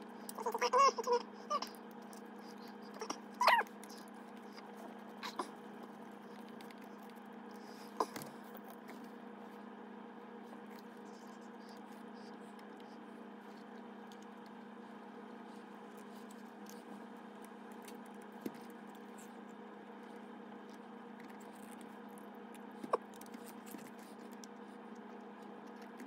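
Small screwdriver and hard plastic RC car parts being handled while a sway bar is fitted: a few soft clicks over a steady low hum, with brief squeaky sounds in the first few seconds.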